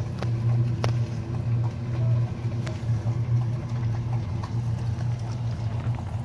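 Two dogs eating, with scattered sharp clicks and crunches, over a steady low hum that is the loudest sound.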